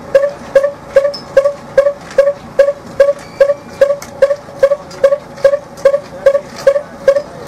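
A traditional carding bow being worked over a pile of loose cotton, its string struck in a steady rhythm of about three strokes a second. Each stroke is a sharp snap with a short ringing twang.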